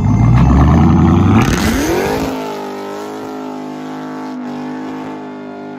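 A Dodge Charger Hellcat's supercharged 6.2 L Hemi V8 exhaust rumbling loudly, then revving, its pitch rising steeply over about a second. The sound then cuts abruptly to a quieter, steady engine drone.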